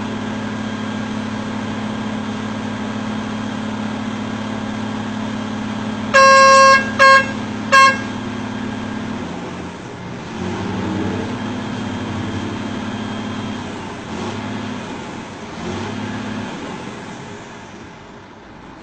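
A vehicle horn gives one longer blast and then two short toots, about six to eight seconds in, over a steady engine hum that drops away about nine seconds in. Mixed road traffic continues more faintly afterwards.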